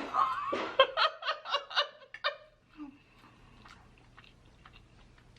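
A woman giggles for about two seconds, then quiet, close-up chewing with small scattered mouth clicks.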